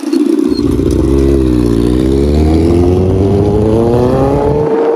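Big sport motorcycle engine running through a homemade tin-can exhaust, loud. Its pitch dips for about two seconds, then climbs steadily as the bike accelerates.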